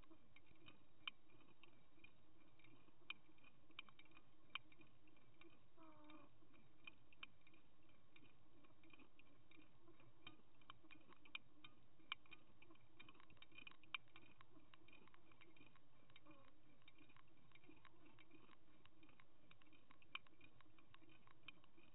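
Faint underwater sound heard from a camera towed on a salmon trolling line: a low steady hum under many scattered, irregular small clicks, thickest around the middle.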